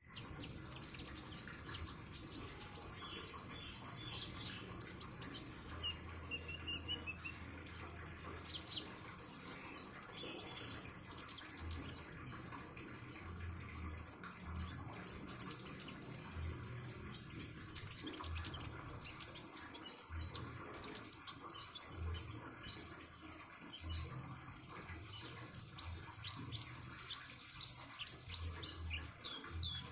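A konin songbird chirping and twittering in quick high phrases throughout, over a steady trickle of water.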